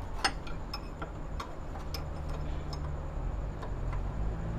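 Ratchet spanner clicking in a string of light, irregular ticks while loosening the 14 mm belt tensioner bolt on a car's air-conditioning compressor.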